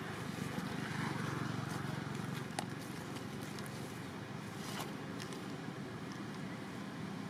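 Steady low outdoor background rumble, with a few faint sharp clicks, one about two and a half seconds in and another near five seconds.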